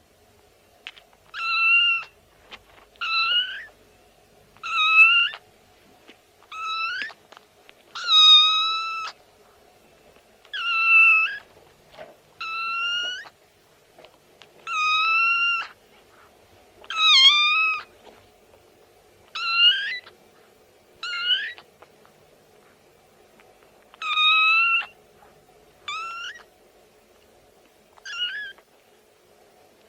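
Domestic cat meowing over and over, about fifteen short meows, one every second or two.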